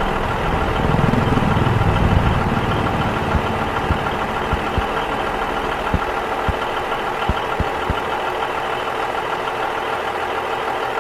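A steady engine-like hum with a low rumble in the first few seconds, and a handful of sharp knocks scattered between about three and eight seconds in.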